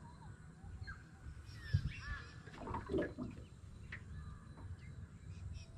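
Birds calling: scattered short chirps and a lower, harsher call about three seconds in. A single sharp knock sounds just under two seconds in, the loudest moment.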